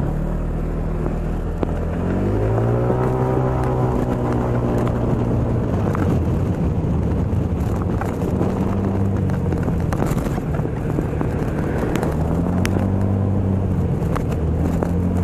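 Moped engine running under way: its pitch climbs as it accelerates about two seconds in, holds steady, then rises and falls again near the end, over road and wind noise.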